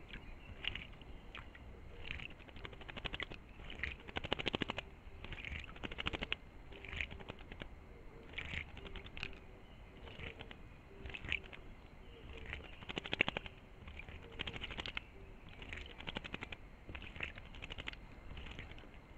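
A bird bathing in a shallow pool, splashing water with rapid wing flutters in short bursts every second or two.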